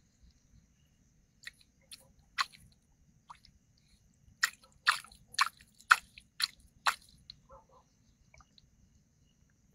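Sharp wet clicks and smacks at the water surface, a few scattered and then six in quick succession about two a second, as an eel bites at the earthworm bait at the mouth of its hole.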